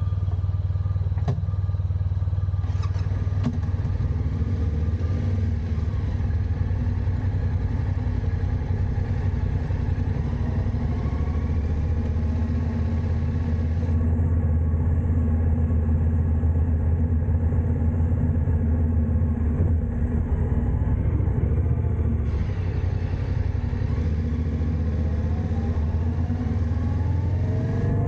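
Motorcycle engine running at low speed as the bike moves, a steady low hum, picking up revs near the end as it accelerates. Heard from a camera mounted on the bike.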